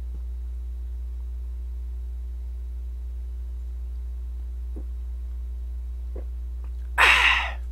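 Steady low electrical hum on the microphone while a man drinks beer from a cup held right by the mic, with a few faint soft clicks as he swallows. About seven seconds in there is a short, loud breathy exhale into the microphone after the sip.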